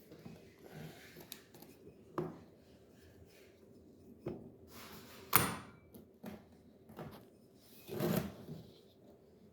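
A few separate knocks and clacks, as of a tool or workpiece being handled and set down, the loudest about five seconds in.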